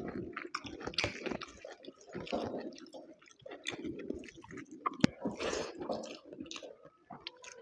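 Close-up chewing of mutton curry and rice, with wet, squishy mouth sounds and a single sharp click about five seconds in.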